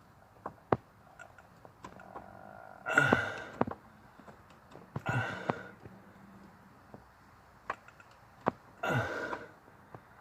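A man lets out three short, strained exhalations, about three, five and nine seconds in, among scattered sharp clicks and taps of tools and parts being handled under a car's dashboard.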